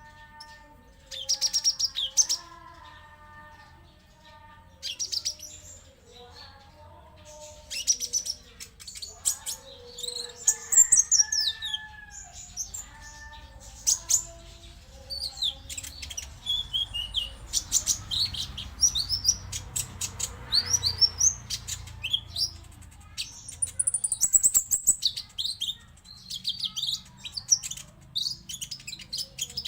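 Olive-backed sunbird (kolibri ninja) singing in rapid bursts of high, thin chirps and trills, some sweeping down in pitch. Lower warbled notes mix in during the first half.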